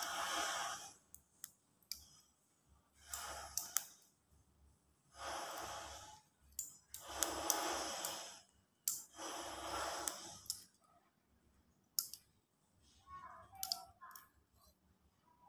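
Fishing line and small snare parts handled at close range as the line is wound and knotted by hand: soft rustling swells every couple of seconds with scattered small clicks.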